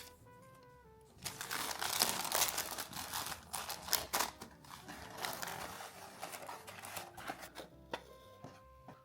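Crinkling and rustling, loud and dense for several seconds from about a second in, over soft background music.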